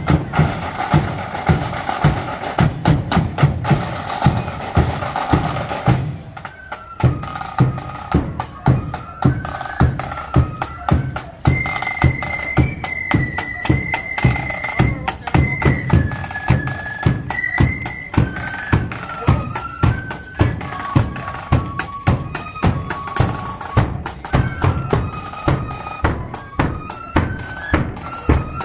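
Marching flute band: side drums and bass drum beat a busy drum cadence for the first six seconds or so. Then the flutes come in with a melody over a steady marching beat on the drums.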